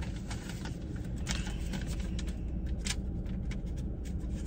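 Scattered light clicks and scrapes from a folding knife being handled, over a steady low hum.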